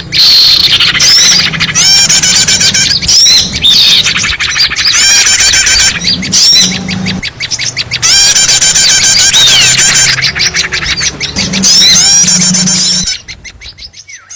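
Loud, dense chattering and squawking of many small birds, a bird-lure recording made to draw wild birds in; it drops away suddenly about a second before the end.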